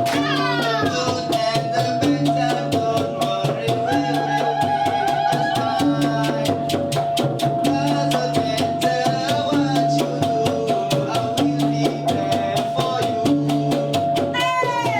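Music with a fast, steady drum beat and a repeating bass line, with no singing; it cuts off abruptly at the very end.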